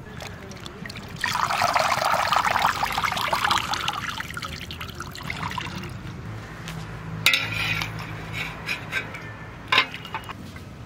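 Water pouring and splashing as pumpkin leaves are rinsed in a metal pot of water and lifted out dripping, loudest for a few seconds from about a second in. Quieter wet handling follows, with a couple of sharp splashes or knocks later on.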